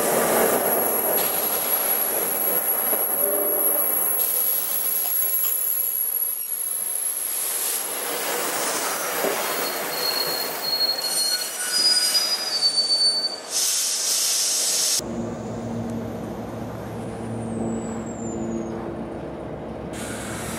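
A New Jersey Transit commuter train running past on steel rails, its wheels squealing with high thin tones over a steady rush of rail noise. About fifteen seconds in the sound changes abruptly to a quieter low rumble with a high falling whine.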